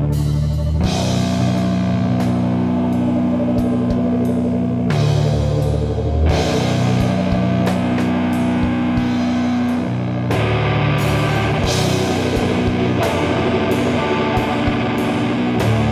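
Doom metal band playing heavy guitar chords over a drum kit, each chord held for a few seconds before the next change.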